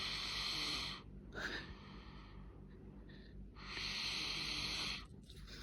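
A sleeping child breathing noisily: two long, wheezy breaths about four seconds apart, with a short snort about a second and a half in.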